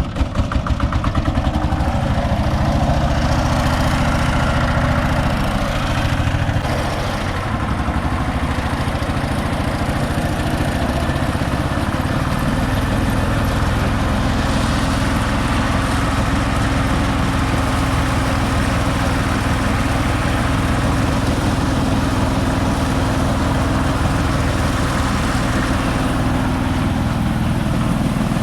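Konma MT-S411D harvester-thresher running steadily after coming up to speed in the first second, its loudness dipping briefly about seven seconds in.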